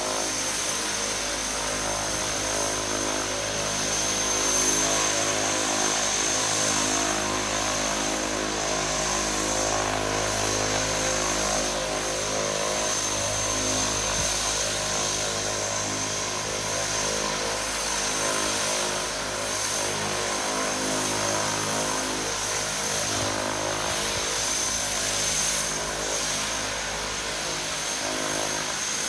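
Twin turboprop engines of a DHC-6 Twin Otter running steadily at idle while the aircraft stands on the ground, a low propeller drone under a constant high turbine whine.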